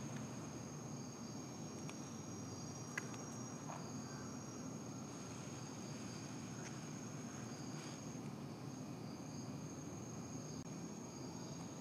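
Insects trilling: one steady high-pitched trill with a second, pulsing chirp just below it, over a steady low rumble, and a single sharp click about three seconds in.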